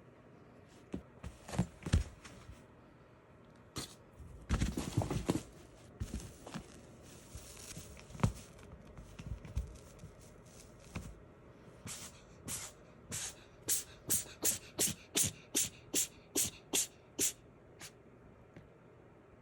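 Dull thuds, then a cat sneezing in a rapid run of about a dozen short sneezes, two to three a second.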